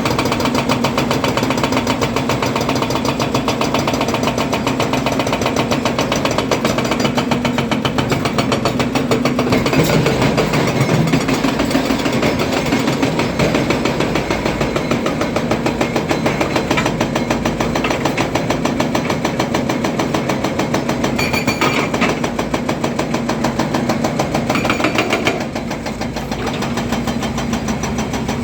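Volvo EC300DL excavator's diesel engine running steadily, a dense rapid chug of firing pulses throughout. It dips slightly in level about 25 seconds in.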